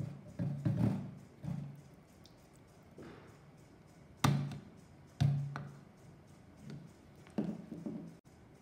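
Silicone spatula knocking and scraping against a stainless-steel mixer-grinder jar while scooping out thick mango pulp: a string of dull knocks, the two loudest about four and five seconds in.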